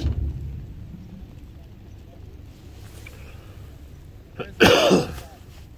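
A low thump at the start, then about four and a half seconds in a person's loud, short vocal outburst lasting under a second.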